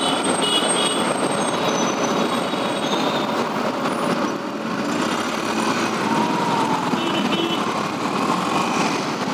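Motorcycle moving slowly in dense city traffic: its engine and the surrounding trucks and cars make a steady traffic rumble, with a few faint high tones above it.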